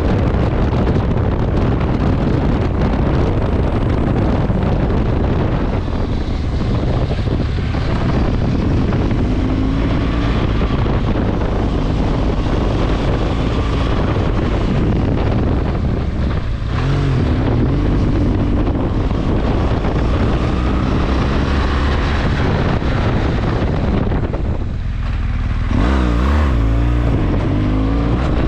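BMW R1200GS Adventure motorcycle's boxer-twin engine running under way, mixed with heavy wind noise on the microphone. The engine note drops and climbs again three times.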